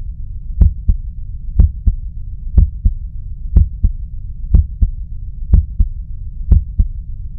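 Recorded human heart sounds: a steady heartbeat of lub-dub pairs, about one pair a second, over a low steady hum. It cuts off suddenly near the end.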